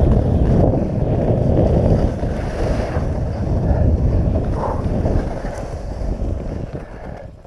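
Wind buffeting the microphone: a dense low rumble that eases off over the last two seconds.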